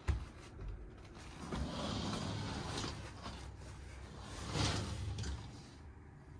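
Curtains being drawn open by hand: a click, then two swishing pulls of fabric sliding along the rail, the second about four and a half seconds in.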